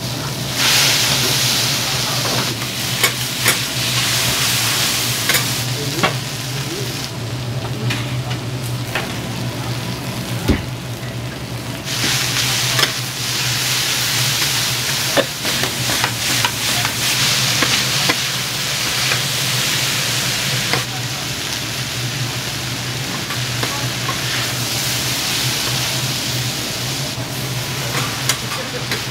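Hiroshima-style okonomiyaki frying on a teppan griddle: a sizzling hiss that swells and eases, with many sharp clicks and knocks, over a steady low hum.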